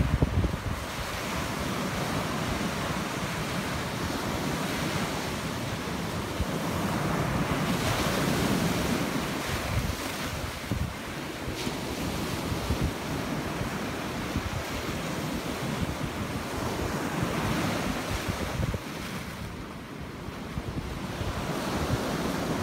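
Ocean surf breaking and washing over and around a rock jetty, swelling louder about 8 seconds in and again about 17 seconds in, with wind buffeting the microphone.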